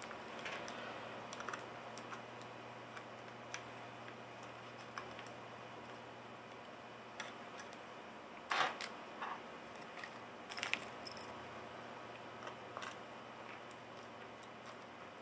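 Light scattered clicks and taps of a 2.5-inch laptop hard drive being handled and seated in a MacBook's drive bay. There is a louder clatter a little past the middle and a short cluster of small metallic clicks soon after, over a faint low hum that stops near the end.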